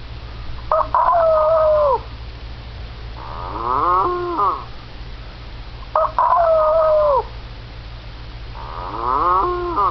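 Cartoon farm-animal sound effects for a sound-matching game: a rooster crow ending in a long falling note and a cow moo that rises and falls, alternating so each is heard twice.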